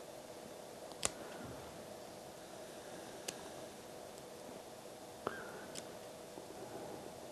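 Small scissors snipping and picking at the fabric layers of a machine-made linen wash button: four sharp clicks, a second or two apart, the loudest about a second in and another a little past five seconds.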